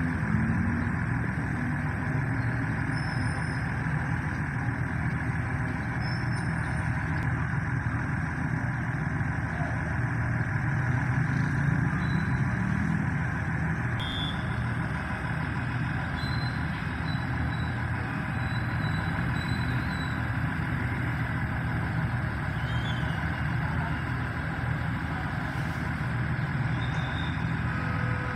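Diesel multiple unit 8002 (PNR 8000 class, built by INKA) running steadily at idle: an even, low engine hum with no change in pitch.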